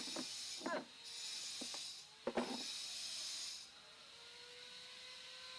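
Hissing that comes and goes in spells of about a second, with a few short squeaky calls from a baby monkey and a sharp knock about two seconds in. Near the end only a faint steady tone is left.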